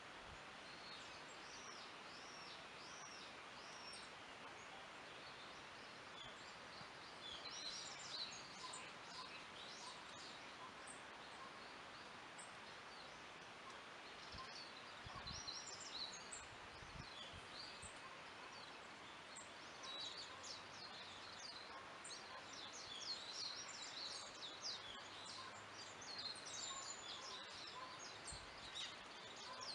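Forest ambience: small songbirds chirping and trilling over a steady soft hiss. The calls come in clusters and grow busiest in the last third.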